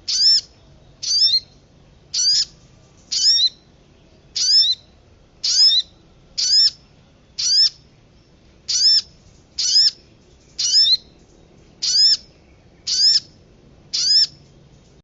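Bird-lure recording of a single short, sweeping call repeated about once a second, fourteen times, each note loud and ringing with several stacked pitches.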